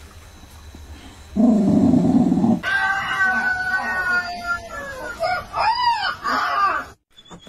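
Bichon Frise dog howling in imitation of a rooster's crow: a long, wavering, pitched call that rises and falls, starting about two and a half seconds in. Before it there is a brief, loud, low buzzy sound.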